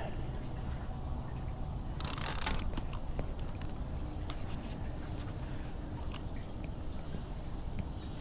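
Summer insects droning at a steady high pitch, with faint scattered clicks from a conventional fishing reel being cranked against a hooked catfish, and a short rush of noise about two seconds in.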